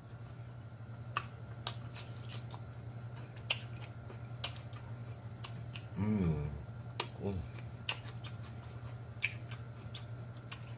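Close-miked eating sounds: sharp, wet lip smacks and mouth clicks while chewing chicken wings. A hummed "mmm" comes about six seconds in and a shorter one just after, over a steady low hum.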